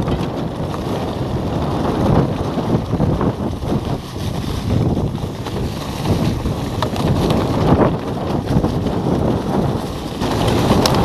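Wind buffeting the microphone of a handlebar-mounted camera on a mountain bike riding downhill, over the rumble of tyres on a rough, leaf-strewn dirt trail, with scattered knocks and rattles from the bike.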